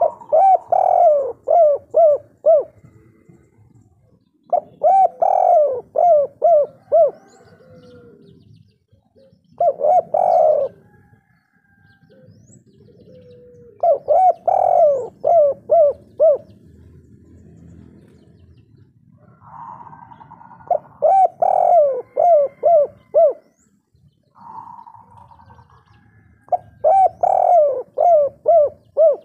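A spotted dove (tekukur/derkuku) coos in the song type hobbyists call kuk 3. It gives a phrase about every four to five seconds, each a quick run of four to six falling coos, some opened by a longer held note.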